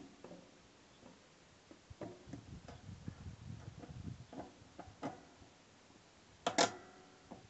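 Small metal clicks and knocks of a steering rod and its eye end being handled and fitted onto an electric linear actuator, with a louder ringing metallic clink about six and a half seconds in.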